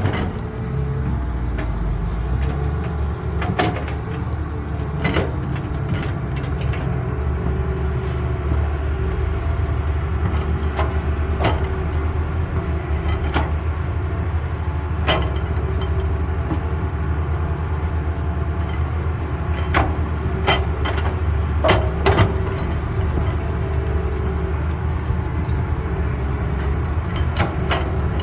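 Caterpillar excavator's diesel engine running steadily under load, with sharp clanks every few seconds, several of them in quick succession a little after the middle.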